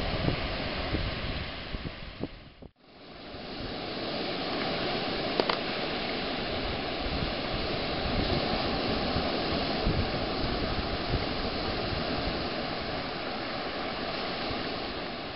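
Steady outdoor rushing noise with no clear pitch. It breaks off abruptly about three seconds in, fades straight back in, and carries one faint click a little after five seconds.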